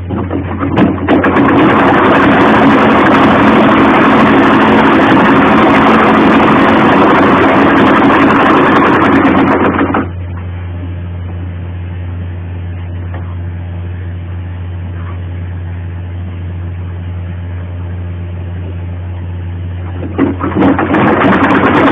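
Sewing machine running steadily as it stitches a seam, stopping about ten seconds in and starting up again near the end. A steady low hum continues underneath throughout.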